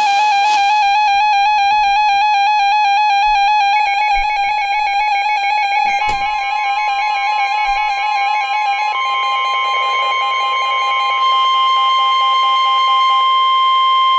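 Emergency alert tones from a weather-radio broadcast, several layered together. A warbling alert tone is joined about six seconds in by a steady, higher single tone, the weather radio's warning alarm tone. The steady tone takes over and holds while the warble fades near the end.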